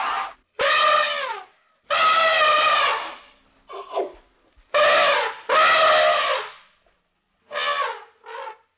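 Elephant trumpeting through its trunk: a series of about seven short, high, brassy calls, each under a second, some dropping in pitch at the end.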